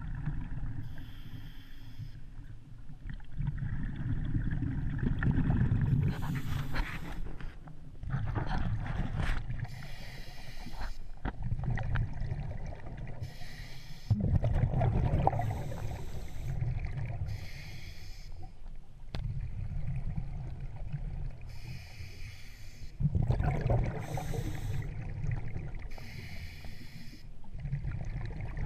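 Muffled underwater rumble and gurgling picked up through the housing of a submerged camera, swelling and fading, with short hissing stretches every few seconds.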